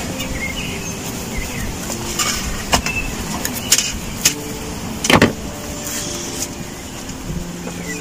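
Long metal skewers clinking and scraping against a metal tray as roasted lamb is worked off them, with a few sharp knocks, the loudest about five seconds in, over a steady rushing background.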